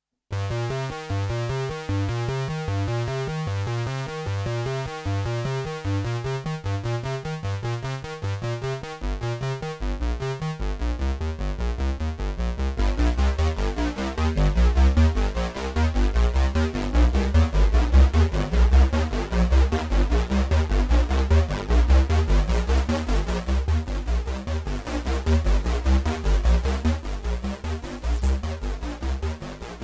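Behringer Poly D analog synthesizer, recorded dry, playing a repeating pulsing pattern that starts abruptly after a brief silence. About ten seconds in, a deeper, busier bass line joins and the pattern thickens.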